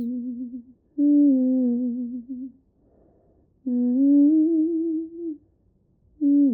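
A person humming a slow tune in phrases of about a second and a half, with short pauses between them and a wavering vibrato on the held notes.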